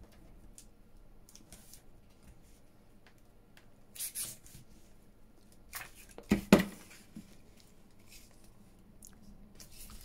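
Paper being handled and laid onto a glued collage board: a few short rustles about four and six seconds in. The loudest is a pair of quick, sharp sounds about six and a half seconds in.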